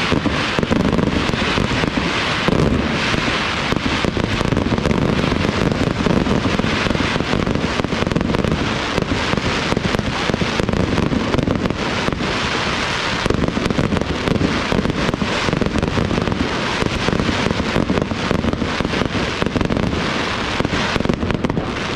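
Aerial firework shells bursting in a rapid, continuous barrage, the bangs overlapping into dense crackling with no pause.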